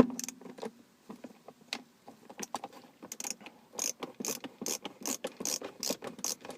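Phillips screwdriver backing out a small console screw, a run of ratchet-like clicks that settle to about two or three a second from about two and a half seconds in.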